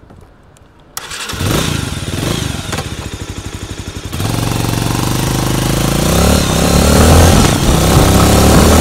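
Motorcycle engine heard from a phone mounted at the rear of the bike. It starts abruptly about a second in and runs unevenly, then a little after halfway it steps up and revs, its pitch rising as the bike pulls away.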